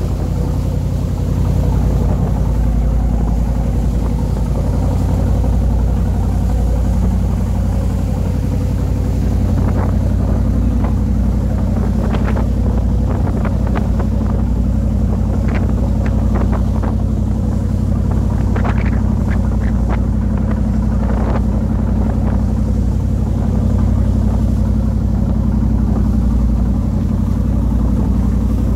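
Fishing boat's engine running steadily at cruising speed, a loud low drone, with water rushing in its wake. Short sharp sounds are scattered through the middle.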